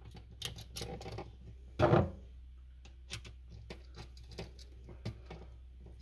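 Light clicks and taps of a wire and a screwdriver against a GFCI outlet's terminal screw as the hot wire is fastened, with one louder bump about two seconds in.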